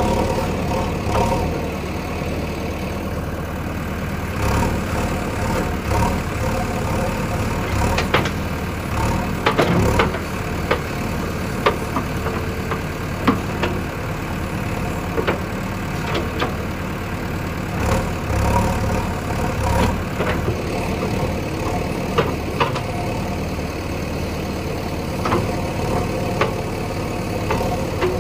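Heavy diesel engine running steadily, with short sharp knocks now and then.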